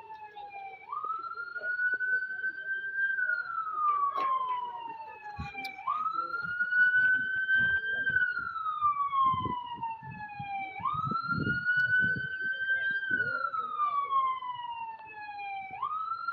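A wailing siren: its pitch jumps up, climbs a little, then slides slowly down, repeating about every five seconds. Low, uneven rumbling runs beneath it in the middle stretch.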